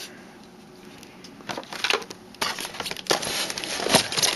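Packaging rustling and crinkling as kit parts are lifted out of a foam-lined box: quiet at first, then irregular crackles and rustles from about a second and a half in, growing louder toward the end.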